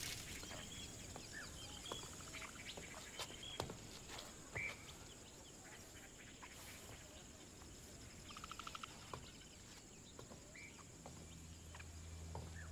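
Faint birdsong: scattered short chirps and calls, with a quick rattling trill about eight and a half seconds in. A low steady hum comes in near the end.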